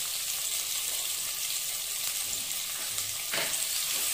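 Sliced onions sizzling in hot groundnut oil and ghee in an aluminium pressure cooker, a steady frying hiss just after they go in. A short knock about three seconds in.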